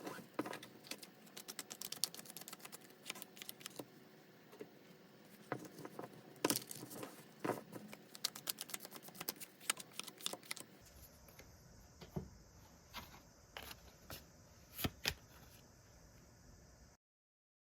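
Tarot cards being shuffled and handled: a rapid run of light clicks and taps, dense for about the first ten seconds, then sparser taps until the sound stops suddenly near the end.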